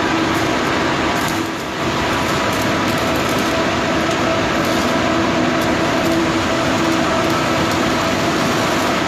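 Arc welding inside a large steel tank: a steady, dense crackling hiss with a few steady tones underneath, dipping briefly about a second and a half in.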